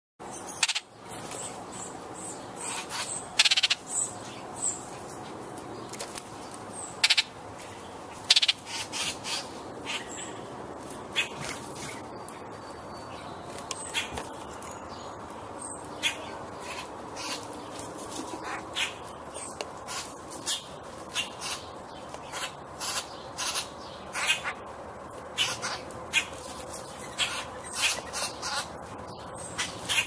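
Garden birds giving short, sharp, harsh calls, many in an irregular series, over a steady outdoor background.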